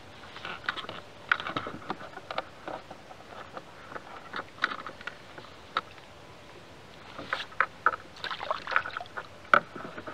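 Small irregular splashes and knocks of water and handling at the side of a plastic fishing kayak, in clusters, busiest near the end.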